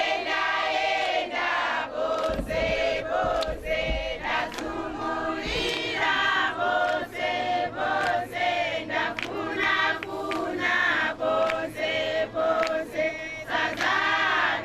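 A choir of men's and women's voices singing together in phrases. A low rumble runs under the singing for a few seconds, starting about two seconds in.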